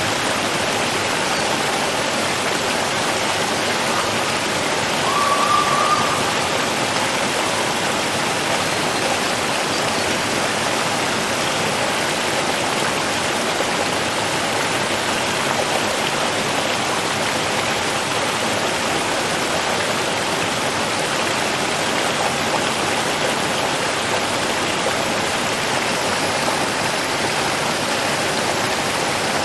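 Steady rushing of running water, even and unbroken. About five seconds in, a brief higher tone rises slightly above it.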